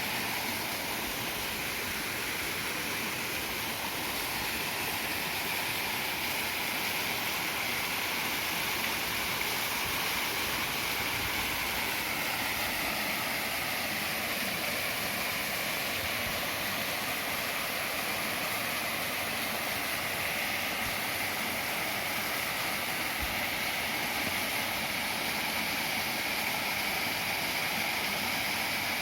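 Waterfall: water pouring in a steady, even rush.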